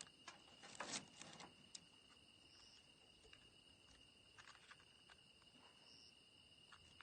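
Faint crackling and popping of a wood fire, in clusters near the start and again about four and a half seconds in, over a steady high-pitched insect trill.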